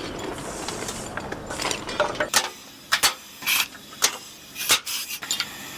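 Workshop machinery or hand tools making a run of sharp clicks and clanks at irregular intervals, over a low background noise.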